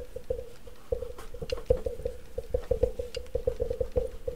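Irregular small clicks and taps, several a second, from handling plastic embossing and shaping tools and a piece of card on a craft mat, starting about a second in, over a steady hum.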